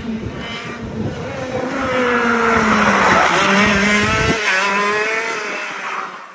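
Racing go-kart engine passing close: its pitch drops as it slows for the corner, then climbs again as it accelerates away, growing fainter near the end.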